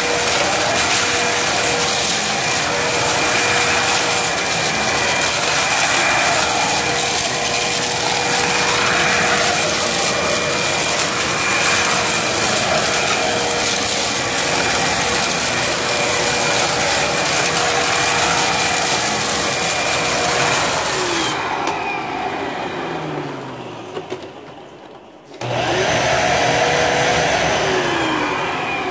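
Vacuum cleaner running with a steady whine over its rush of air. About twenty seconds in the motor winds down with a falling pitch; after a brief break it sounds again and winds down once more.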